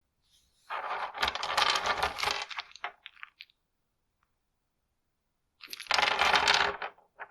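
Carving knife cutting a basswood stick: two long rasping cuts, each trailing off in a few small ticks.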